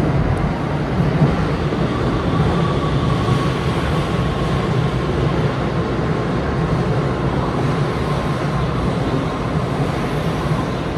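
Tokyo Metro 17000 series train pulling into an underground station under braking. Its Hitachi full-SiC MOSFET VVVF inverter whines, the pitch falling slowly as the train slows, over a steady rumble of wheels and motors.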